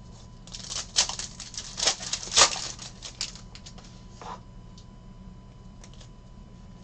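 Stiff Prizm trading cards being flicked and slid against one another as a stack is sorted through by hand: a quick run of sharp snaps and rustles for a couple of seconds, then a few lighter taps.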